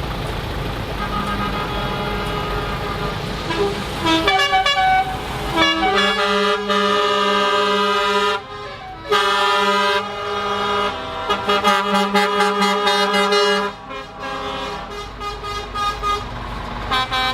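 Truck air horns blowing, several notes sounding together: a few shifting notes about four seconds in, then long blasts broken briefly near the middle and again about three-quarters through, over running truck engines.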